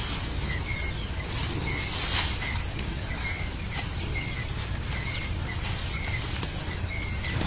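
Outdoor ambience with a bird's short, high chirp repeated at a steady pace, a little more than once a second, over a steady low rumble, with a few sharp clicks or taps, the loudest about two seconds in.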